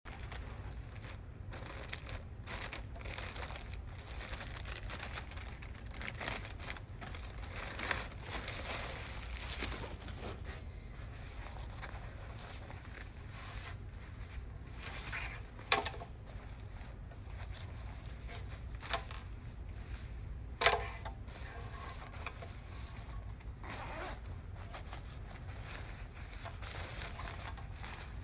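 Rustling and handling of a nylon-and-mesh running hydration vest and its water bladder, in irregular scrapes and crinkles over a low steady hum. Two sharp clicks stand out past the middle, the second the loudest.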